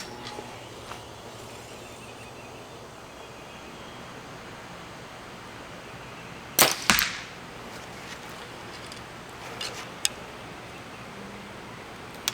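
Compound bow shot: a sharp crack of the string a little past halfway through, followed a fraction of a second later by a second smack as the arrow hits the target. A few faint ticks come afterwards.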